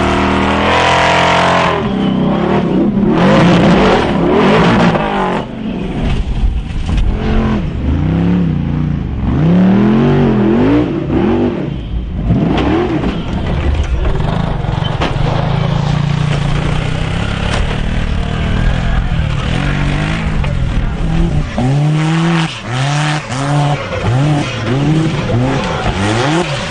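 Off-road vehicle engines revving hard, the pitch rising and falling again and again as the throttle is worked.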